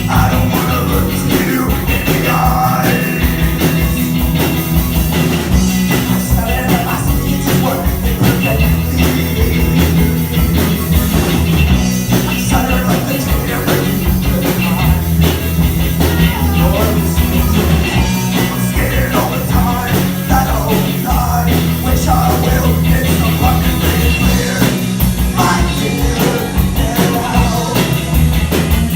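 Rock band playing live, loud and steady, with a full drum, bass and guitar sound.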